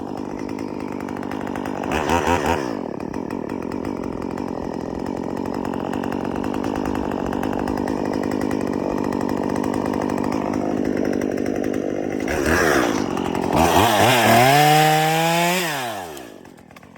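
Chainsaw engine idling, blipped briefly about two seconds in and again near the end, then revved hard for a couple of seconds before the revs fall away and the sound dies down.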